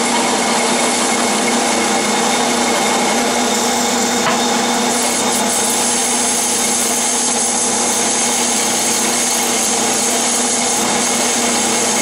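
Clausing metal lathe running at 400 RPM while a narrow grooving tool is fed into a spinning aluminum pulley blank. It makes a steady machine hum under the hiss of the cut, and the hiss gets a little brighter about five seconds in.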